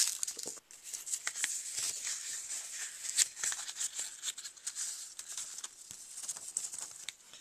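Paper envelope being torn open by hand: a continuous run of crackly tearing and rustling of paper, easing off near the end.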